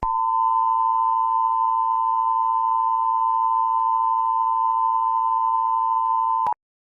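Emergency-alert style attention tone: a loud, steady high-pitched beep over faint hiss and a low hum, starting suddenly and cutting off abruptly near the end.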